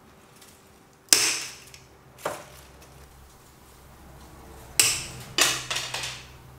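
Bonsai cutters snipping through green Japanese maple branches: four sharp snaps, the first two about a second apart and the last two in quick succession near the end.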